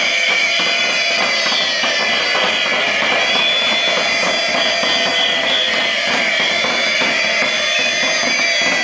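Loud, continuous din of a street protest: fast, irregular drumming or banging, with several shrill steady tones held over it, as of whistles.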